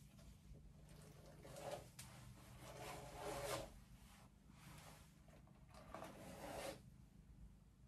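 Faint strokes of a hairbrush drawn through hair, three swishing strokes with the longest in the middle.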